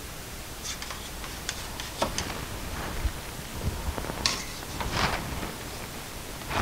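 Plastic paint cups and a paint bottle being handled on a tabletop: scattered light clicks, taps and short scuffs as they are set down and picked up.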